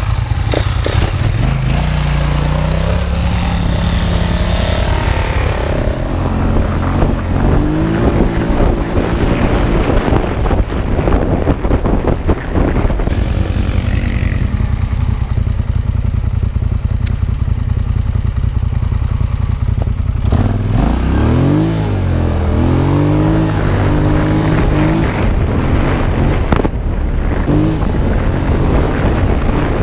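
Quad bike (ATV) engine running hard as it pulls away and rides along a dirt track, its pitch climbing and dropping again and again as the throttle is opened and closed. Heavy wind noise on the microphone at speed.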